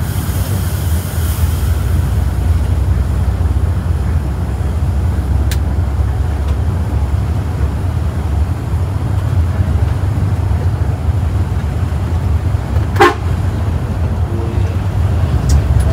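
Steady low engine and road rumble of a Mercedes-Benz OH 1526 coach on the move, heard from inside the bus, with a brief sharp sound about thirteen seconds in.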